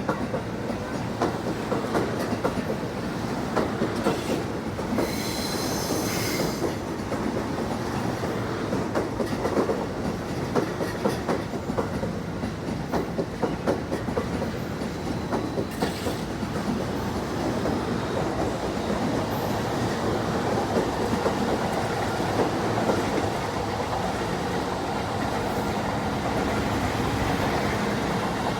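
JR electric commuter train running on the tracks, wheels clattering over rail joints, with a brief high wheel squeal about five seconds in.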